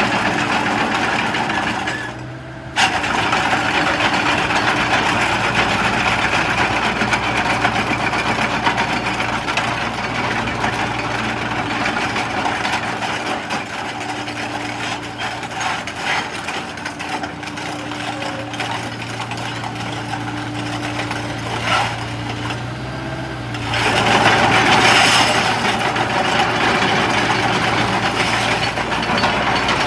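Komatsu PC60-8 excavator's 3.2-litre four-cylinder diesel running steadily as the machine is driven about. It dips briefly about two seconds in and gets louder for the last six seconds.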